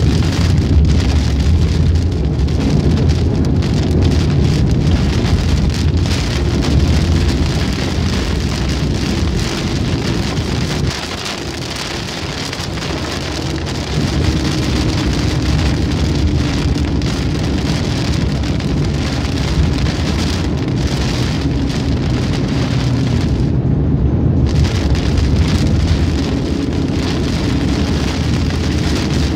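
Heavy rain hitting a car's windshield and roof, heard from inside the moving car, over a steady low rumble of road and engine noise. The sound eases briefly about eleven seconds in and comes back up about three seconds later.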